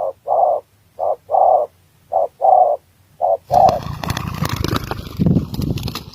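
Spotted dove cooing in a repeated short-then-long phrase, about once a second, three times. About three and a half seconds in, the cooing gives way to a sudden burst of loud rustling and scuffling.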